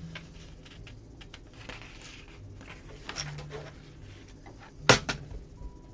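LEGO pieces being handled and pressed together: scattered small plastic clicks and rustling, with one sharp snap about five seconds in.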